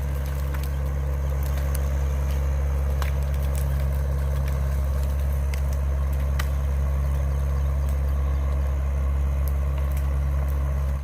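Excavator's diesel engine running steadily with a low, even drone, with scattered sharp cracks over it.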